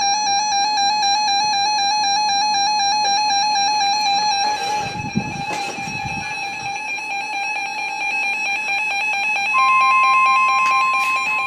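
A steady buzzing tone with overtones. About ten seconds in, the weather-radio 1050 Hz warning alarm tone starts: one pure, steady, louder tone that signals an alert broadcast is about to follow.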